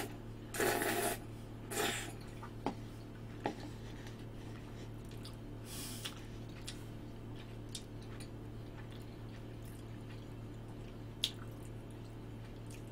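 A person eating a forkful of thick, creamy instant mac-and-cheese pasta. Wet slurping mouth sounds come in the first two seconds, followed by quiet chewing with a few faint clicks.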